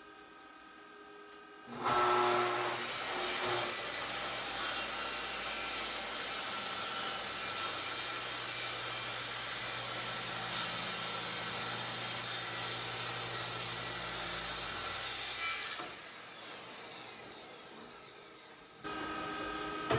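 Festool track saw starting up about two seconds in, then cutting through maple plywood with a steady high motor whine for about fourteen seconds. It is then released and winds down, its whine falling in pitch.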